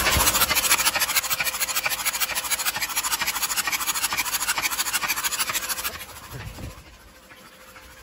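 Audi Q7 3.0 TDI V6 diesel turning over on its starter with the glow plugs out, so it cranks with no compression and does not fire. It makes a fast, even rhythmic sound that stops about six seconds in. The crank is meant to blow diesel out of a cylinder flooded by a suspected leaking injector, which has been blanked off.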